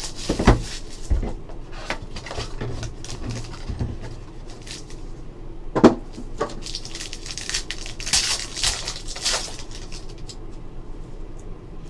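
Plastic shrink wrap crinkling and tearing as a sealed trading card box is unwrapped and its foil-wrapped pack handled, with scattered clicks and knocks. There is one sharp knock about six seconds in, and a louder run of crinkling a couple of seconds later.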